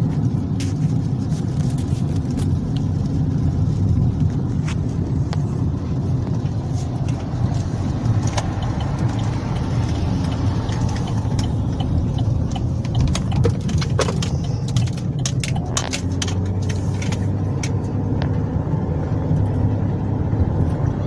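A car's engine and road noise heard from inside the cabin while driving: a steady low rumble, with scattered faint clicks.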